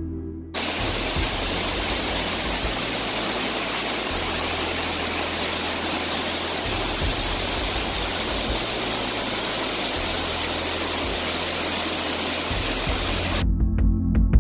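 A large waterfall with a steady, dense rush of falling water. It comes in abruptly about half a second in and cuts off just before the end, with the low tones of ambient music continuing underneath.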